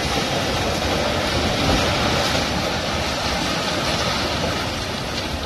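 Rushing floodwater and the rumble of a multistorey building collapsing into the river, heard as one dense, continuous noise that swells a little about two seconds in.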